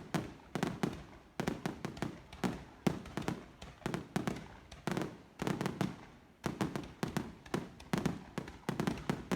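Aerial fireworks bursting in rapid, irregular clusters of sharp bangs, several a second, each trailing off briefly, with a short lull about six seconds in.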